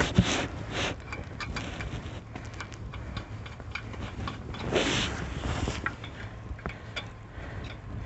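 Lug nuts being threaded by hand onto a car wheel's studs: a scatter of small metallic clicks and ticks, with a brief rustle about five seconds in.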